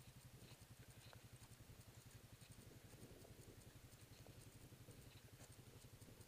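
Near silence: a faint steady low hum with a few soft ticks.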